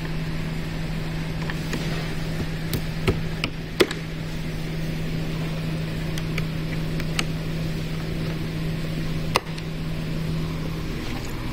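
A flathead screwdriver tapping down the cam locks on a recliner's back brackets: scattered sharp clicks, the loudest about four seconds in and again near nine seconds. A steady low hum runs underneath.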